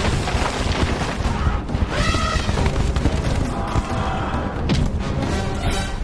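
Sound effects of a stampeding elephant herd in a cartoon: dense, continuous thudding and rumbling, mixed with orchestral film score.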